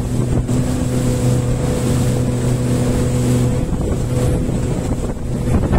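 Motorboat engine running under way with a steady hum, over wind buffeting the microphone; the hum weakens about three and a half seconds in.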